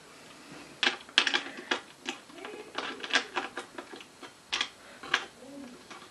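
Irregular clicks and taps of hardware being handled: hands working bolts, washers and a metal bracket on the underside of an office chair seat during assembly. The sharpest clicks come about a second in and again near the end.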